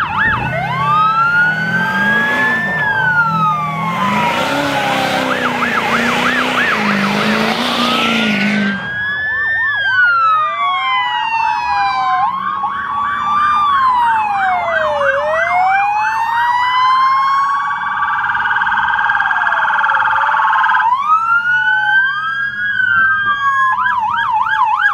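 Several police sirens sounding at once, a fast warbling yelp overlapping with slow wails that rise and fall over a few seconds, as police cars pass. From about four to nine seconds in, a loud rushing noise of a passing vehicle sits under the sirens.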